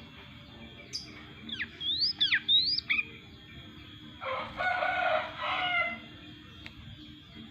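Yellow-vented bulbul singing a short phrase of quick, loud whistled notes that swoop up and down, followed about four seconds in by a lower, harsher call lasting under two seconds.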